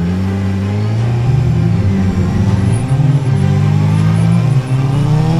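2004 Yamaha R6's inline-four engine accelerating hard as the bike pulls away, its pitch climbing and stepping down several times as it shifts up through the gears.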